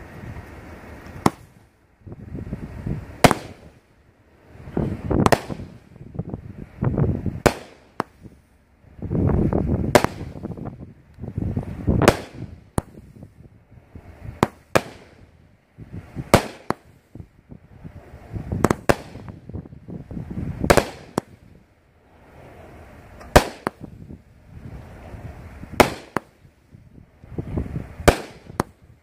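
A 25-shot, 200-gram consumer firework cake (Alien Fireworks' She's Packing Heat) firing shot after shot. Launch thumps and sharp aerial reports come about every two seconds.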